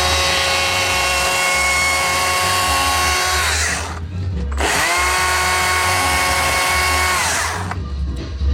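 Handheld electric power tool run twice at full speed, a steady high whine that winds down after each run, the second run spinning up from a stop. Background music with a heavy bass runs underneath.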